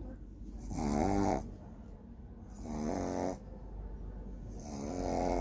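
A sleeping pet snoring loudly: three snores about two seconds apart, each with a clear pitch that bends slightly, with quieter breathing between them.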